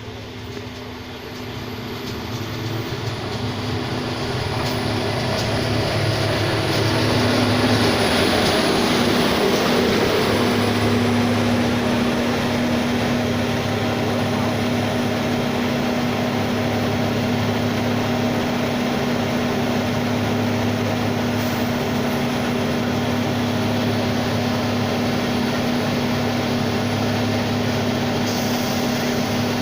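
Engine of a self-propelled railway track-maintenance machine running with a steady hum, growing louder over the first several seconds as it draws close, then holding steady.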